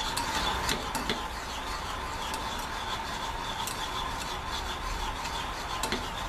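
Wire whisk stirring a thickening glaze in a small saucepan: soft steady rubbing and scraping against the pan, with a few light clicks near the start and near the end, over a steady background hiss.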